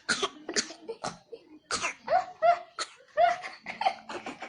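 A small child coughing over and over, a string of short coughs about every half second, some of them voiced.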